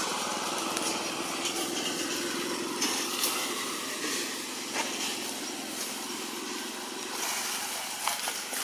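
A small engine running steadily, with a few sharp clicks over it.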